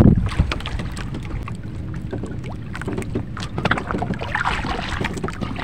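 Water lapping against the hull of a small wooden boat sitting on the water, with scattered small knocks. A loud low rush of wind on the microphone dies away right at the start.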